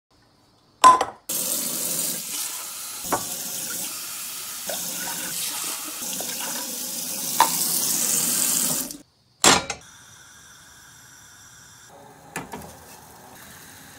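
Kitchen tap running into a plastic cup, a steady rush of water that stops suddenly about nine seconds in. A sharp knock comes just before the water starts and another just after it stops, then a faint steady hum with a light knock near the end.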